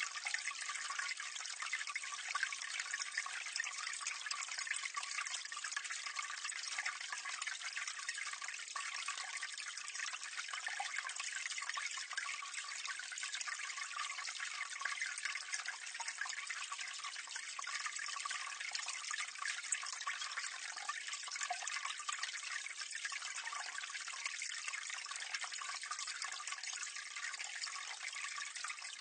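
Water pouring and splashing into a drain at close range: a steady, dense spatter of many small splashes, mostly high and hissy with little low rumble.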